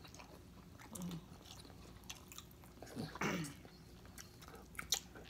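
Mouth sounds of people eating deshelled crab meat and shrimp in butter sauce: quiet chewing and wet smacking, with a few sharp clicks and a short hummed murmur about three seconds in.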